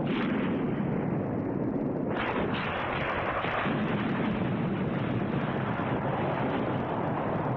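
Dense, continuous battle noise of artillery and gunfire, with no single shot standing out. A harsher, brighter layer comes in about two seconds in.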